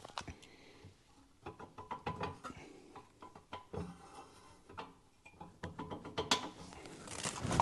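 Irregular light metal clicks, knocks and scraping from a wood stove's secondary air tube being worked and twisted into its mounts inside the firebox. A sharper knock comes about six seconds in.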